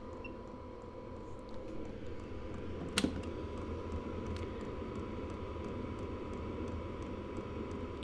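Chinese 5 kW diesel air heater running: a steady fan-and-burner drone with a faint high whine and faint regular ticks. A single sharp click about three seconds in.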